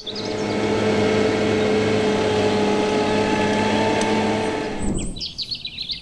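A New Holland tractor's diesel engine running steadily as it pulls a cultivator across a field, cutting off about five seconds in. Birds chirp in the last second.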